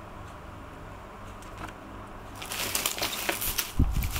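Plastic packaging crinkling as hands pull a boxed product out of a thin plastic bag and bubble wrap. It starts about halfway through and grows busier and louder toward the end.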